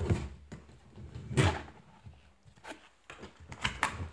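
Cardboard box being handled and its lid flap pried open: scraping and tapping of cardboard, with a louder knock about a second and a half in and a few sharp clicks near the end.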